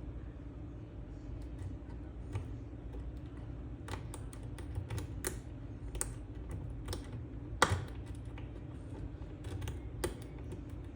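Irregular small metallic clicks and taps of a lock pick and tension bar working the pins of a CEI pin-in-pin lock, the loudest click about two-thirds of the way through, over a steady low hum.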